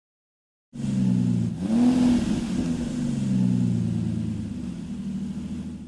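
Car engine starting up suddenly and revving, its pitch rising briefly about a second and a half in, then running steadily before fading out at the end.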